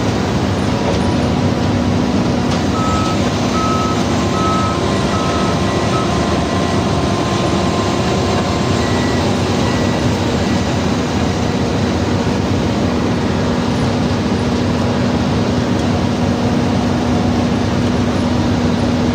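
Heavy construction machinery running steadily with a constant engine hum. A reversing alarm sounds five short, evenly spaced beeps a few seconds in, and fainter beeps follow a few seconds later.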